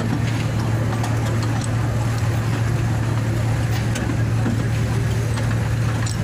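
Park toy train running, heard from aboard: a steady low engine drone with faint clicks and rattles over it.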